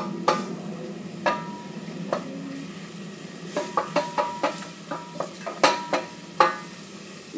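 A spoon stirring chopped onion and garlic frying in oil in a metal pot, knocking irregularly against the pot, some knocks with a short metallic ring, more often in the second half, over a low sizzle.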